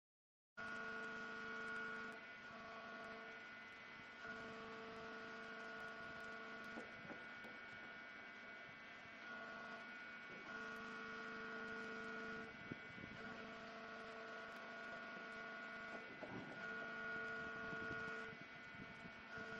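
Machinery on a rail transfer cart humming. After a short silence it starts about half a second in as a steady pitched hum with several tones, some of which cut in and out every few seconds, with a few faint knocks.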